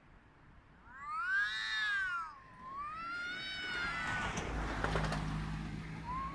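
A cat's courtship yowling, the drawn-out mating call heard at night: two long wailing calls that rise and fall in pitch, the second longer and wavering, then a short call begins near the end. A low rumble sits underneath in the middle.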